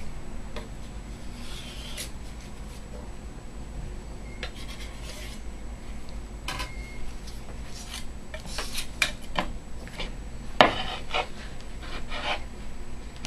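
Palette knife scraping and gathering pigment paste in linseed oil across a glass slab in irregular short strokes, with one sharper scrape about ten and a half seconds in. Near the end a glass muller starts rubbing the paste on the glass.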